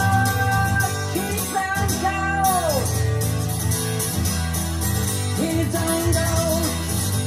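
Recorded song played over a McIntosh MC275 tube power amplifier and B&W 804S loudspeakers, heard in the room: guitar over a steady bass, with a note sliding down about three seconds in.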